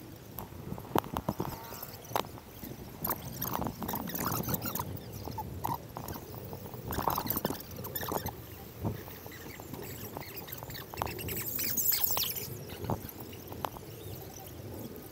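Bicycle ridden slowly through a crowd, heard from a helmet-mounted GoPro: irregular clicks and knocks over steady road and wind noise, with a burst of hiss about twelve seconds in.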